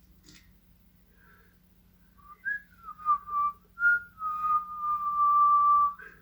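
A person whistling: a few short notes starting about two seconds in, ending on one long held note.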